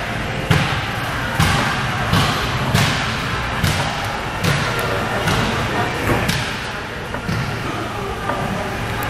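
Plate-loaded standing calf raise machine knocking at each fast calf-raise rep, a thud with a sharp metallic edge about once every 0.8 seconds.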